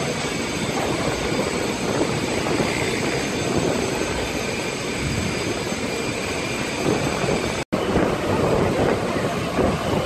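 Steady rushing noise of a burning factory being fought with a fire hose: flames and the hose's water jet. It cuts out for an instant about three-quarters of the way through and comes back rougher and more gusty.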